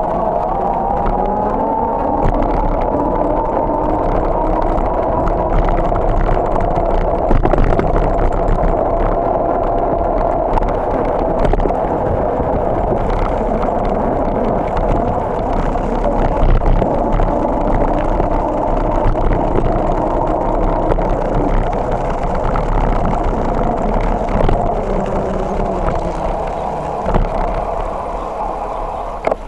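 Bicycle rolling on asphalt, with a steady whine that rises as it picks up speed in the first couple of seconds and then holds, over a low rumble and scattered rattles and knocks from the road surface. The sound fades as the bike slows near the end.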